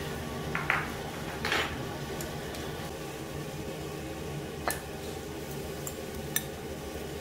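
Metal chopsticks and tableware clinking on ceramic plates and bowls, a few separate clicks, the strongest about a second and a half in, over a steady room hum.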